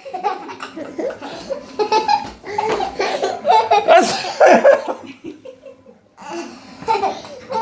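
Family laughing hard, children among them: loud, broken bursts of laughter that die down briefly about five and a half seconds in and then pick up again.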